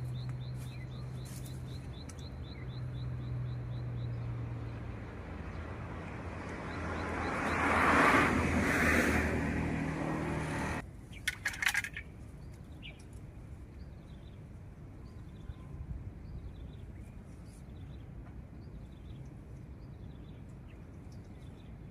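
A vehicle hums and passes by, growing louder to a peak about eight seconds in, then cuts off abruptly. After a few clicks, birds chirp repeatedly over quiet outdoor background.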